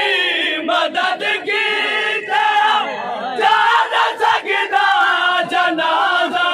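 A crowd of men chanting a Muharram noha (mourning lament) loudly in unison, with sharp beats between the sung lines.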